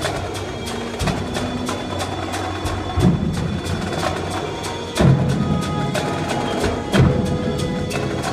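Indoor percussion ensemble playing: rapid strikes from marching drums over held tones from mallet keyboards, with heavy low drum hits about every two seconds.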